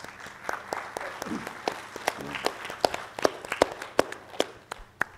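An audience applauding, with many individual claps standing out; the clapping thins out near the end.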